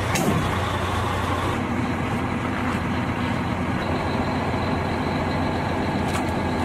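Heavy diesel engines running steadily at the loading site, a constant low hum with a steady drone.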